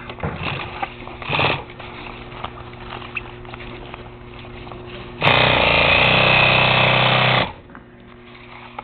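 Consew 206RB industrial walking-foot sewing machine running a short burst of about two seconds, sewing at a small stitch length, over a steady low hum. A couple of soft knocks come in the first two seconds.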